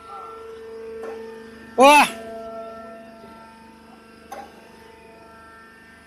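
Steady hum of a hydraulic wood-shaving baler's power unit running. About two seconds in it is broken by one brief, loud sound that rises and falls in pitch, and a single click follows a couple of seconds later.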